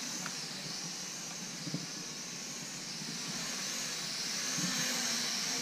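Small quadcopter drone's propellers and motors whining in flight, a steady high whine that wavers up and down in pitch as it manoeuvres.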